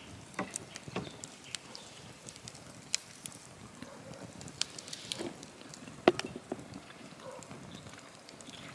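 Wood bonfire crackling, with irregular sharp pops; the loudest pop comes about six seconds in.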